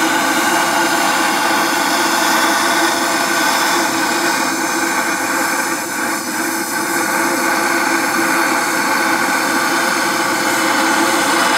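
A heating tool running steadily with a constant rushing noise while it preheats a differential's gear set to about 165–200 degrees before welding. The level dips briefly about six seconds in.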